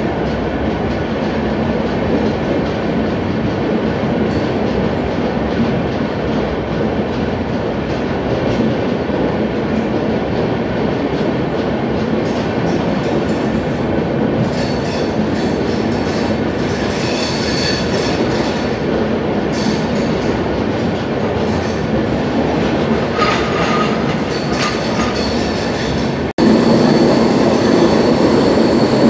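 Mahanagri Express passenger train running on the line, a steady rumble and clatter of the coaches on the track. From about halfway, high thin wheel squeals come and go over the rumble. Near the end the sound cuts out for an instant and comes back louder.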